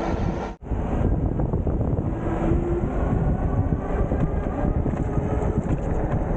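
Wind rushing over the microphone and road noise from a moving electric bike, with a few faint steady tones in it. The sound cuts out for a moment about half a second in.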